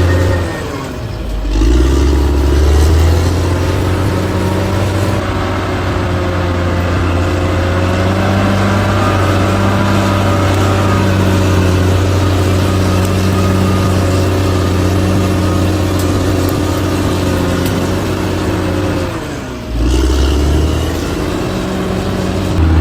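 Diesel engine of a heavy earthmoving machine running steadily. Twice, about a second in and again near the end, its pitch sags and it comes back up.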